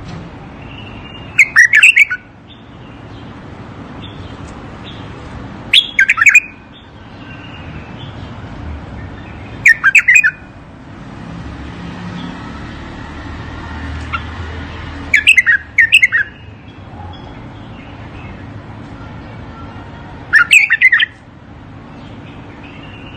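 Bulbul song: five short, loud phrases, each under a second, coming about every four to five seconds over a faint steady background hum.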